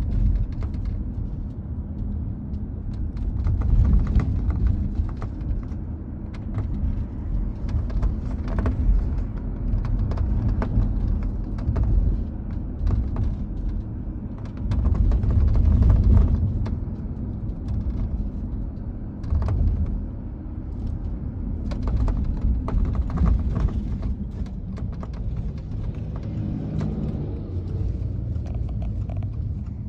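Irregular clicking and rattling from the roof of a 2022 Subaru Outback over a steady low road rumble while driving. The owner suspects the rattle comes from a roof beam separating from the roof panel.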